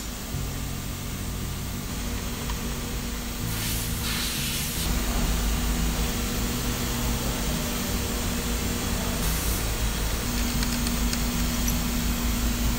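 Steady hiss and low hum of workshop machinery running, with a few constant low tones underneath.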